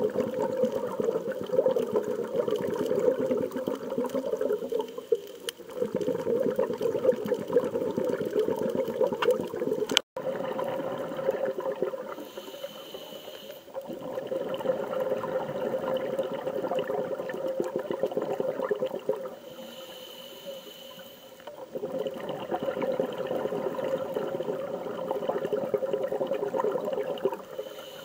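Water rushing and bubbling in long surges of a few seconds each, with short softer lulls between them. It breaks off abruptly for a split second about ten seconds in.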